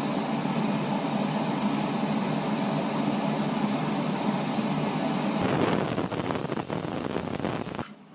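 Prestige Supreme aluminium pressure cooker hissing steadily as it heats, with steam escaping around the whistle weight. The hiss grows rougher about five and a half seconds in and breaks off just before the end.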